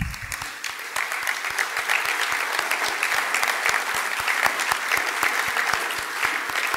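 Audience applauding steadily, with nearby claps from the presenter at the lectern microphone.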